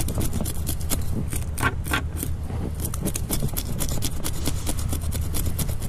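A spoon scraping the scales off a pigfish in quick, repeated short strokes; the scales come off easily. A steady low hum runs underneath.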